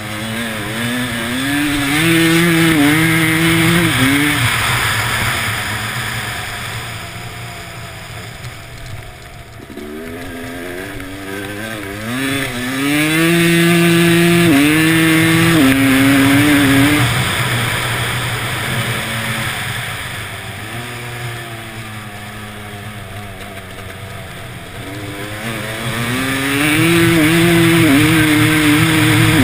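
Dirt bike engine accelerating hard three times: about a second in, around the middle, and near the end. The pitch climbs and drops back at each upshift, and the engine eases off to a lower, quieter note in between, over a steady rushing noise.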